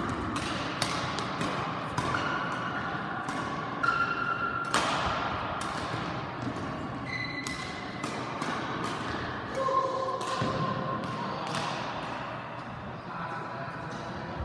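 Badminton rally: rackets smacking the shuttlecock in sharp, irregular hits, with short high squeaks of court shoes on the floor, echoing in a large sports hall.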